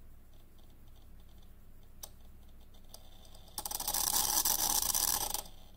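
Heater relay in a magnetic stirrer hotplate's homemade temperature controller chattering, a rapid run of clicks like a geiger counter for nearly two seconds, after two single clicks. The controller has no hysteresis, so the relay switches the heater on and off over and over as the temperature sits at the setpoint.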